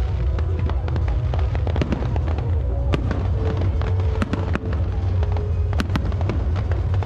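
Aerial firework shells launching and bursting overhead: a continuous low rumble of booms with many sharp cracks and crackles, and music playing underneath.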